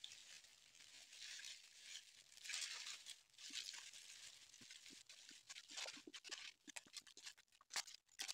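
Faint rustling and crackling of the dry leaves of a red ant nest being pulled apart and shaken over a woven tray, with small ticks and crackles growing denser near the end.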